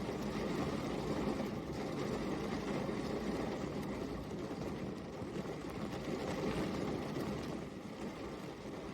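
Steady rain falling, an even hiss with a low rumble in it, easing slightly near the end.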